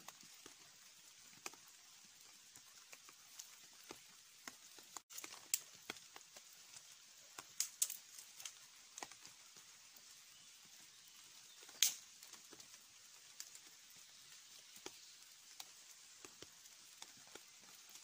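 Small wood campfire crackling faintly, with scattered sharp pops and snaps over a low hiss; the loudest pops come about five and a half, eight and twelve seconds in.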